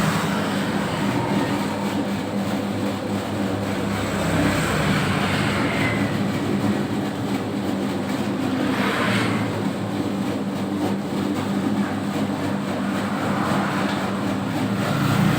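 Home-built 3 kg dough mixer running steadily with its motor and drive humming as it mixes a batch of donut dough.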